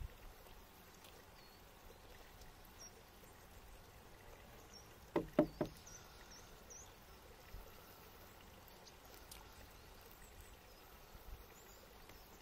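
Quiet open-air ambience with a few faint, short, high bird chirps, broken about five seconds in by three or four quick knocks of tableware on a wooden table.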